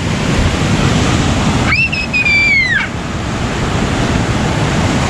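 Rough surf from a typhoon breaking on the beach, a steady rush of water with some wind on the microphone. A little under two seconds in, a single high-pitched cry of about a second rises and then slides down.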